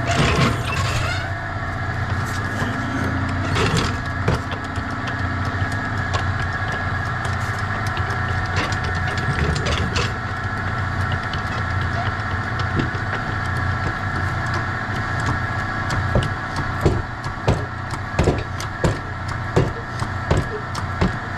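A car jack being worked to lift the side of a 2007 Dodge Caravan. There is clanking at first, then a regular run of knocks about two a second in the last few seconds as the handle is pumped, all over a steady mechanical hum.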